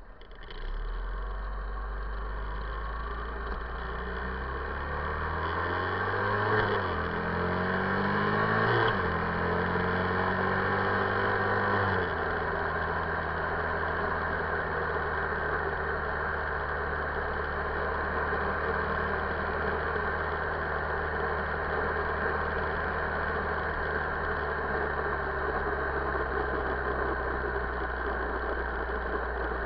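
Buell XB9SX's air-cooled V-twin pulling away and accelerating, its pitch climbing and dropping back at two upshifts, then settling into a steady cruise. Wind rush on the microphone runs under the engine.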